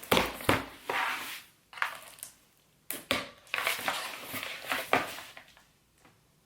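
Cardboard box being opened by hand: irregular bursts of rustling and scraping cardboard and packing, with sharp knocks and short pauses between.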